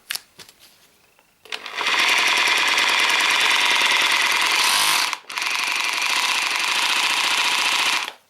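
Bosch GBH 3-28 DFR 800 W hammer drill running in hammer-only mode, a loud, rapid hammering rattle. It starts about a second and a half in, stops briefly about five seconds in, starts again, and stops just before the end.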